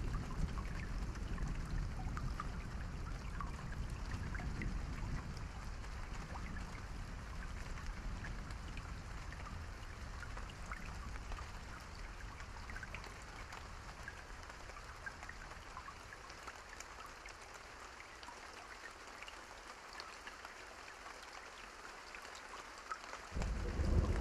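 Steady rain falling, with scattered drops ticking. A low rumble of thunder dies away over the first half, and a new thunder rumble breaks in suddenly near the end.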